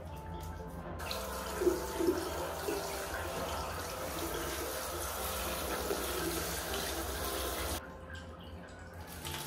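Handheld shower head spraying water over a rooster's feathers and onto a tiled floor: a steady rush of water that starts about a second in and cuts off suddenly near the end.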